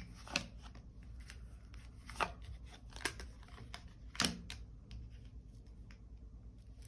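Tarot cards being handled and drawn from the deck: a string of sharp card snaps and clicks, four stronger ones over the first four seconds with softer ticks and rustles between.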